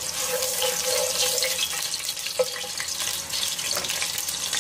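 Cooking oil heating in a nonstick pot on a gas stove: a steady hiss with faint crackling. A single sharp tap about two and a half seconds in.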